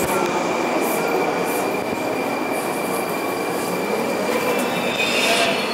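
Metro train noise heard from inside a standing Ezh3 subway car with its doors open at a station: a steady rumble with a thin, steady high whine over it, and a rise of hiss near the end.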